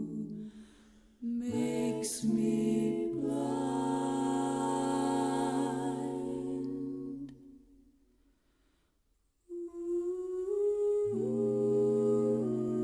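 Background music of slow, held chords in a hummed, choir-like tone, fading to near silence about two thirds of the way through before the chords return.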